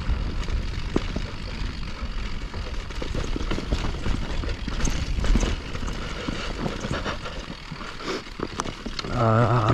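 Mountain bike rattling down a rocky trail: rapid knocks and clatter as the tyres and frame hit the rocks, over a constant low rumble. A brief wavering pitched sound comes in near the end.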